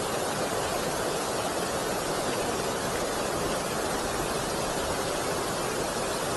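Water pouring over a river weir: a steady, even rush.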